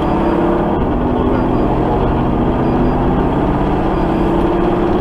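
Fire engine's diesel engine running steadily under way with road noise, heard from inside the cab; the engine note rises slightly about four seconds in.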